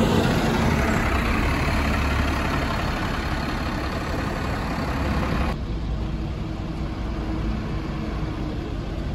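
Alexander ALX400 double-decker bus engine running, loud with a hiss over a low rumble. About five and a half seconds in, the upper part of the sound drops away suddenly, leaving a quieter, steady engine hum.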